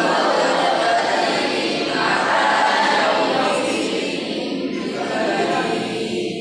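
A group of voices reciting a Quranic verse together in a drawn-out chant, a class repeating the verse after the teacher.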